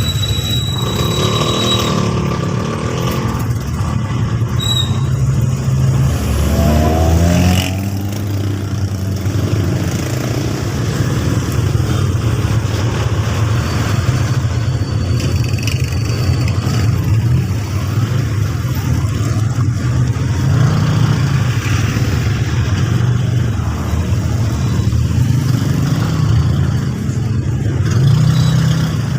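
A motor vehicle's engine running while under way, its pitch shifting up and down, with a rising rev about seven seconds in.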